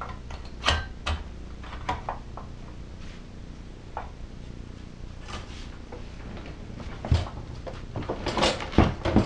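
Tecumseh LV195EA engine shroud being handled and set down onto the engine: scattered knocks and clatters, with a cluster of louder knocks near the end.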